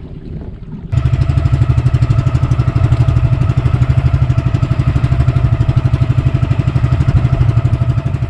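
Small boat engine of a wooden outrigger bangka running steadily with a fast, even putter, coming in abruptly about a second in.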